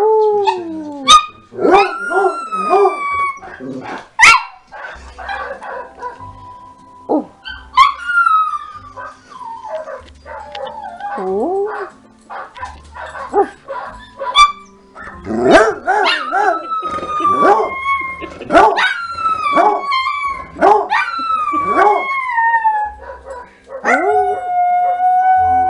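A coonhound and a chihuahua howling back and forth: long howls that slide down in pitch, broken by short sharp barks and yips.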